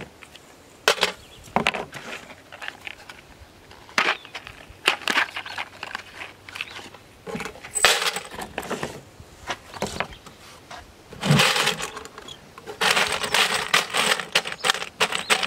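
Loose brass .223 rifle cartridges clattering as they are tipped out of their plastic cases into a steel .30 cal ammo can, with clicks from cardboard boxes and plastic cases being handled. The clattering comes several times, and the longest pour is near the end.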